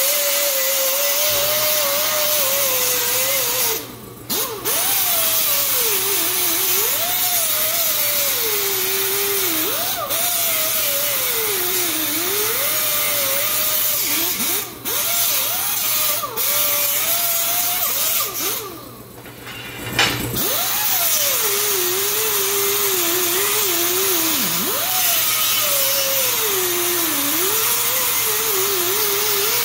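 Small angle grinder grinding weld beads flush on a steel square-tubing frame. Its pitch sags and recovers again and again as the disc is pressed into the metal and eased off. It stops briefly about 4 and 15 seconds in, and for a second or two around 19 seconds.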